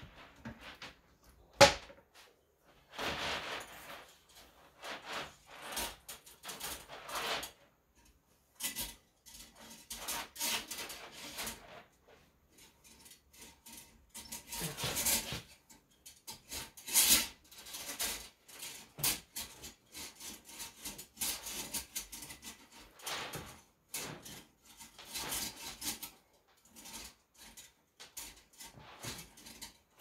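Toilet auger's coiled metal cable rubbing and scraping against the porcelain bowl as it is pushed down into the toilet drain, in short irregular bursts with scattered clicks. There is one sharp knock about two seconds in.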